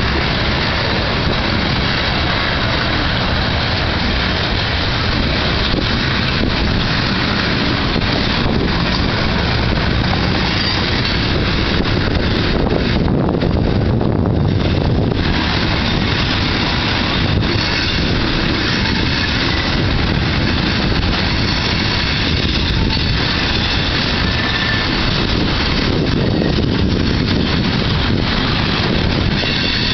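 CSX mixed freight train's cars, autoracks and tank cars, rolling past at close range: a loud, steady rumble of steel wheels on the rails. A faint high ringing comes in near the end.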